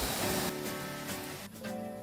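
Instrumental background music with plucked guitar-like notes. A hissing swell over the first half second gives way to held notes, and the music grows quieter.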